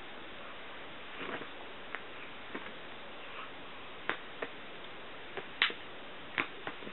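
A playing kitten's short, scattered taps and scuffles, about ten in all, the loudest a little over two thirds of the way in, over a steady hiss.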